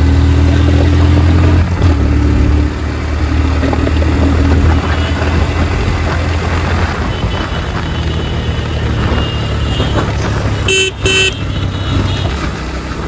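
Motorcycle engine running under way, with wind and road noise, strongest in the first few seconds and then settling lower. Two short horn beeps sound about eleven seconds in.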